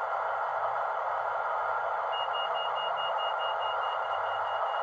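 Sound-fitted Class 156 model diesel unit's onboard speaker playing a steady engine idle, with a rapid run of high beeps at one pitch starting about two seconds in.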